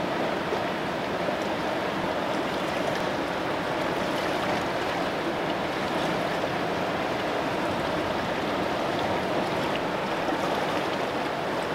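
Mountain stream rushing in a steady, even flow, with a few faint clicks of a fork against a frying pan.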